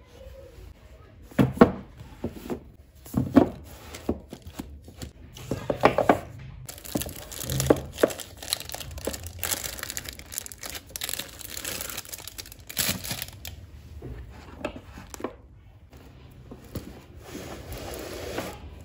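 Paperback manga volumes being handled on a bookshelf: several sharp knocks as books are set and pushed into place, then a stretch of papery rustling and crinkling as they slide against each other and are handled.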